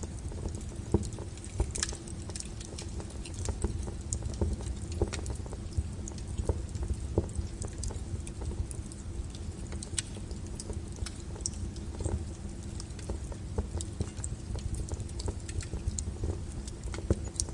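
Wood fire burning: irregular sharp crackles and pops over a low steady rumble.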